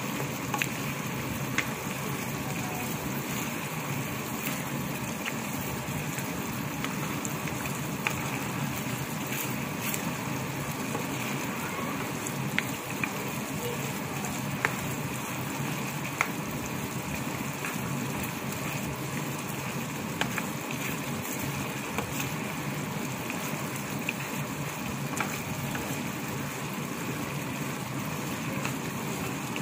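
Sauce with chicken feet bubbling steadily in a wok, with scattered sharp pops and clicks.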